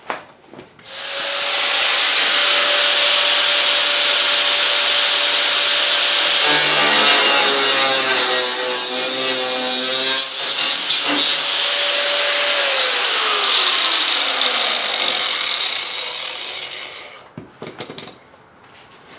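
Electric angle grinder spinning up about a second in and cutting the sheet-steel edge off a truck bedside patch panel; its steady whine wavers and dips in pitch while the disc bites into the metal. It is then released and winds down with a falling whine.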